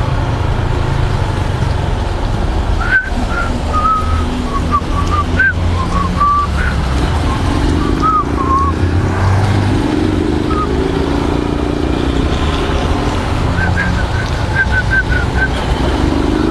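Motorcycle ride: a steady loud rumble of the 150 cc engine and wind on the rider's microphone, with gliding engine pitch from traffic in the middle. Short high chirping or whistled notes come and go twice, first from about three to nine seconds in and again near the end.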